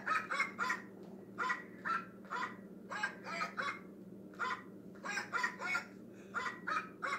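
A girl singing wordlessly in a put-on voice for a dog hand puppet: short sung syllables, about three a second, in phrases broken by brief pauses.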